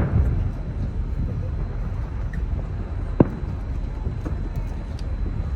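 Distant fireworks going off: sharp bangs at the start and about three seconds in, with a few fainter pops, over a steady low rumble and crowd murmur.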